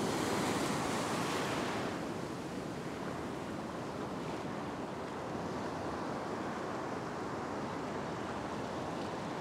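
Ocean surf: a large wave breaking and its wash rushing across a flat rock shelf. It is loudest for the first two seconds, then settles into a steady rush of water.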